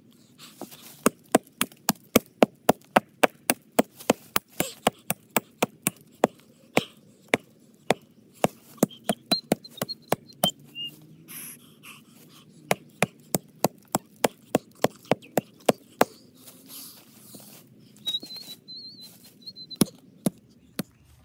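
Axe chopping into a tree trunk: a fast run of sharp strikes, about three a second, with one short pause, then a few last scattered blows near the end.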